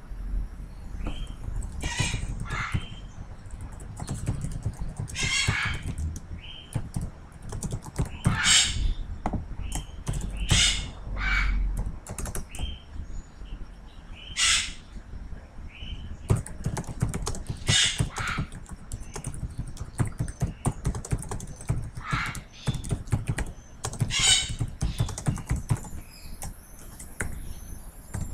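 Typing on a computer keyboard: a run of irregular key clicks, with louder, longer noises every few seconds.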